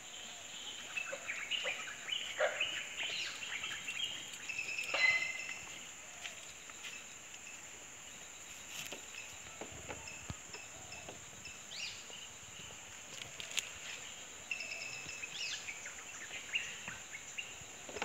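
Rural daytime ambience: a steady high-pitched insect drone, with birds chirping in short bursts, busiest in the first few seconds and again near the end, and a few soft ticks and rustles.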